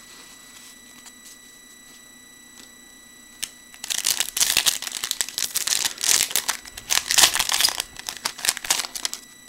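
Wrapper of a Topps Prime Football trading card pack crinkling and tearing as it is ripped open by hand, starting about four seconds in and lasting about five seconds. Under it runs a faint steady high-pitched whine from a computer fan.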